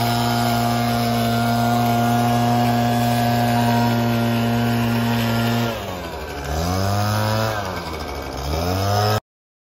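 Gas backpack leaf blower engine running steadily at high throttle, then throttled down about six seconds in and revved back up twice. The sound cuts off abruptly near the end.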